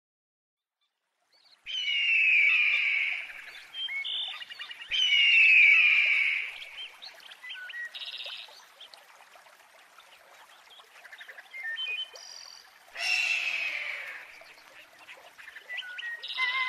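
Birds calling: after a second and a half of silence come three loud calls that slide down in pitch, at the start, middle and near the end, with shorter chirps and trills between them.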